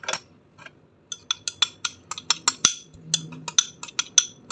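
Rapid taps on the base of a small upturned white bowl, each with a short bright ring, about five a second, starting about a second in: knocking the last of the garlic-and-pepper seasoning out of the bowl onto the fish.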